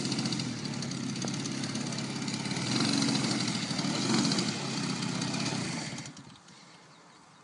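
DLE-55 single-cylinder two-stroke petrol engine of a Sebart Su-29 model aerobatic plane idling as the plane taxis, revving up briefly twice, then cutting off about six seconds in.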